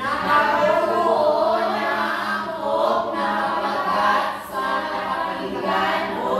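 A class of students reading aloud together in unison, many voices in a sustained sing-song chorus, with a short break a little after the middle.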